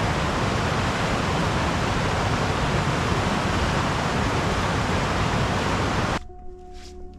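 Mountain river rushing over boulders in rapids: a steady, loud rush of white water that cuts off suddenly about six seconds in, leaving faint steady tones.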